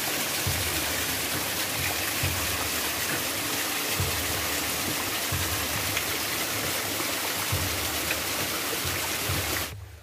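Small waterfall: water splashing down a narrow rock cleft, a steady rushing hiss that cuts off suddenly shortly before the end.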